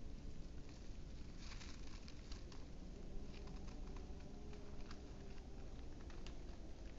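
Displaying male western capercaillie making a run of dry, irregular clicks, bunched together between about one and three seconds in and then spaced out.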